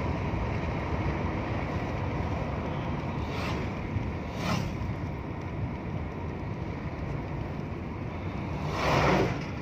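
Steady road and engine rumble of a moving vehicle, heard from inside its cabin, with wind noise. Brief whooshes pass twice around the middle, and a louder one about nine seconds in.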